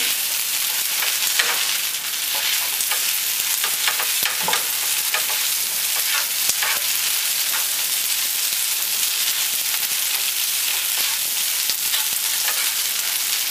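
Rice noodles and broccoli sizzling in a hot frying pan with a steady hiss while being stir-fried, the spatula scraping and tapping against the pan now and then.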